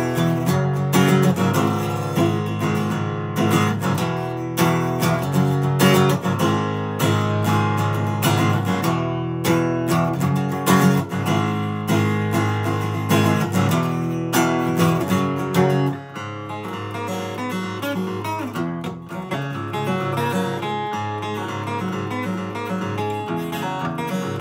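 Steel-string acoustic guitar strummed hard in full chords, with sharp percussive strokes. About sixteen seconds in the playing drops suddenly to a softer, lighter part.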